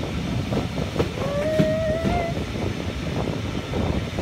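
A steam locomotive's whistle sounds once for about a second, rising slightly in pitch, over the steady running noise and knocks of the carriage on the rails.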